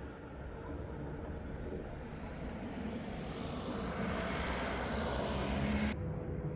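Jet airliner engine noise, a rushing roar that swells over several seconds and then cuts off abruptly about six seconds in.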